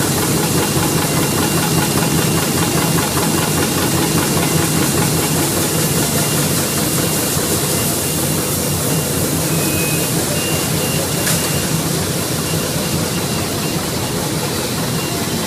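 Side-weld plastic bag-making machine running: a steady, dense mechanical clatter with a constant hiss.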